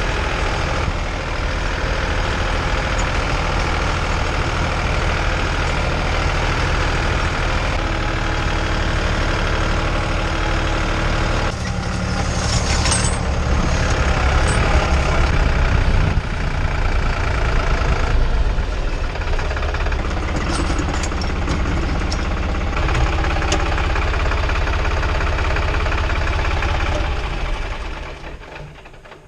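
Tractor diesel engine running steadily, with a few sharp knocks, fading away near the end.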